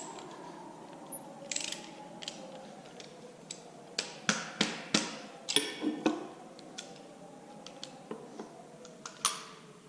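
Hand tools and sockets clinking and tapping against metal while working at a knock sensor on an engine block: about a dozen short, sharp metallic clicks, most of them clustered around the middle.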